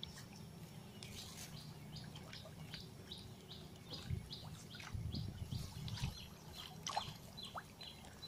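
A small bird chirping steadily in a long series of short, high notes, about two a second, faint over a low background hum.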